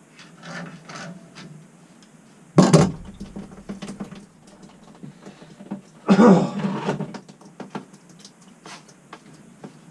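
Tools and metal pipe fittings being handled during plumbing work: scattered small clicks and knocks, one loud knock about two and a half seconds in, and a louder scraping burst about six seconds in.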